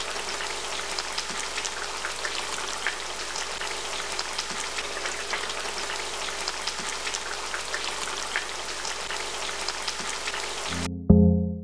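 Fish stew simmering in a pan, its oily tomato-pepper sauce crackling with many small pops. The crackle stops short near the end as a keyboard tune comes in.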